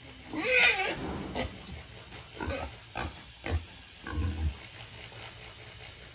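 Wild boar giving a loud, wavering squeal about half a second in, followed by a string of shorter grunts and squeals.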